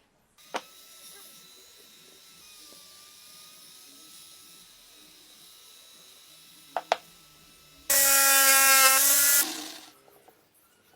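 An electric power tool running in a woodworking shop: a few faint clicks, then about a second and a half of a loud, steady motor whine that dies away.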